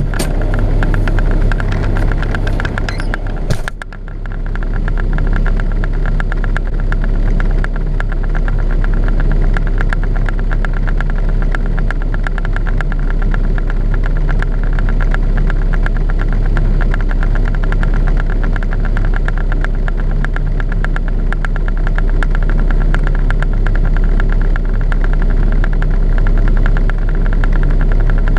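Truck diesel engine idling steadily, a low even hum with a fast regular pulse, heard from inside the cab. The sound dips briefly about four seconds in.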